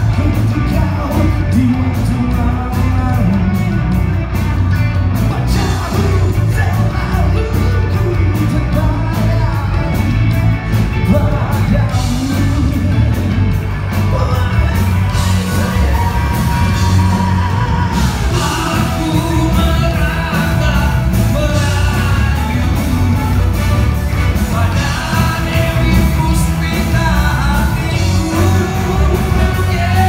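Live rock band performing: male vocals sung into microphones over electric guitar and bass guitar, loud and continuous, with occasional yells.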